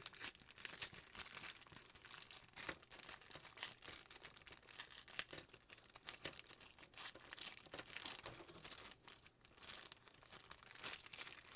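Irregular crinkling and rustling of handled packaging and paper, with small scratchy clicks, as parts are sorted and labelled by hand.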